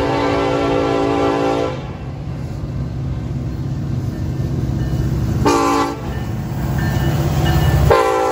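Nathan K5LLA five-chime horn on a Union Pacific EMD SD70AH locomotive. A long blast cuts off about two seconds in, a short toot comes about five and a half seconds in, and another long blast starts near the end. Under the horn, the low rumble of the diesel locomotives grows louder as they approach and pass.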